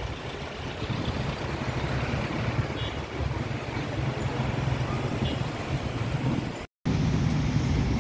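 Road traffic on a busy multi-lane city street: cars and light trucks passing, a steady low engine and tyre rumble. The sound cuts out for a split second near the end, then the traffic noise goes on.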